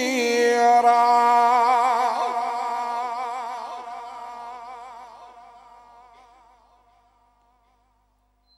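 Male qari's voice holding one long, ornamented note of Quran recitation, the pitch wavering throughout, slowly trailing away to nothing over about seven seconds.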